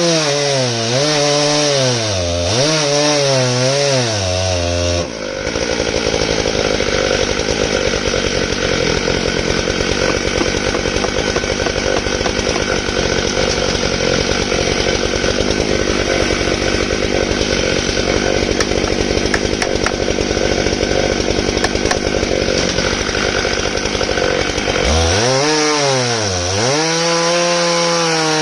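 Stihl MS661 chainsaw, a 91 cc two-stroke on a 42-inch Oregon bar in a chainsaw mill, running under load as it rips lengthwise through elm. Its engine pitch wavers up and down for the first five seconds and again near the end. In between, a steady rasping of the chain cutting covers the engine.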